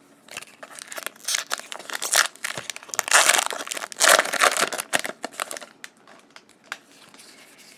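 Foil wrapper of a Magic: The Gathering booster pack crinkling and tearing as it is ripped open, loudest about three to four and a half seconds in. After that come a few faint ticks of cards being handled.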